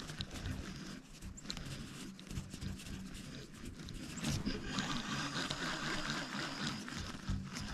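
Faint, uneven water and handling noise around a fishing kayak, with a few light knocks.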